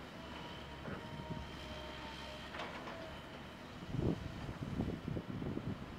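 Hydraulic excavator running, its engine and hydraulics giving a steady drone with a faint whine. About two thirds of the way in, louder irregular low knocking and clattering starts.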